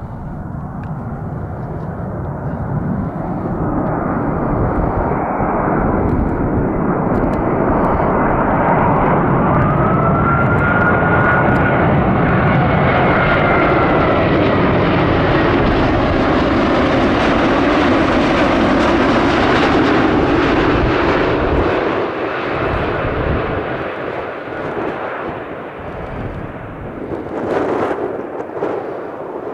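Airbus A380 on landing approach passing low overhead, its four Rolls-Royce Trent 900 turbofans making a broad rushing roar. The roar builds, holds at its loudest for about a dozen seconds with a high whine that glides in pitch, then fades as the airliner moves away. A brief sharp noise comes near the end.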